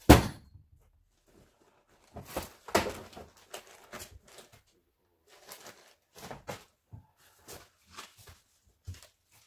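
Cardboard boxes and plastic-wrapped goods being handled and set down in a pickup truck bed. There is one sharp thump right at the start, a longer stretch of rustling and knocking about two to three seconds in, then scattered lighter knocks and rustles.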